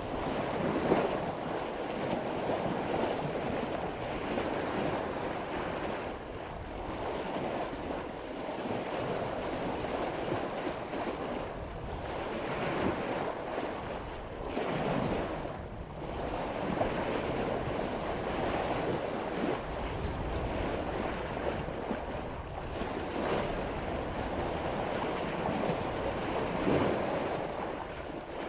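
Sea water rushing and splashing along the bow of a sailboat making about 5 knots through ocean swell, swelling and easing every few seconds as the hull meets each wave, with some wind buffeting the microphone.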